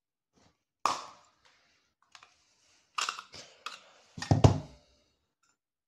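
The housing of an LED smart bulb being forced open with a heavy hand tool: a string of sharp cracks and clicks, the loudest a heavy crack with a low knock about four seconds in.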